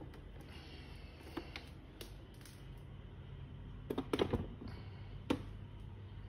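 A few light clicks and knocks from the plastic case of a Rhythm wall clock being handled and hung back on the wall. A short cluster of knocks comes about four seconds in.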